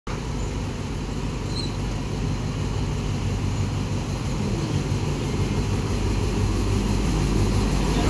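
Diesel locomotive engine running with a steady low hum as the train approaches, growing slowly louder.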